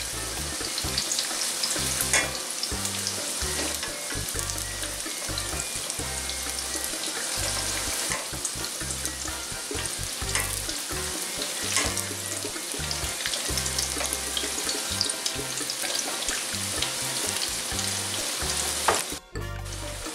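Corn-tortilla taquitos shallow-frying in hot oil in a skillet: a steady sizzle, with a few sharp clicks as metal tongs turn them over in the pan.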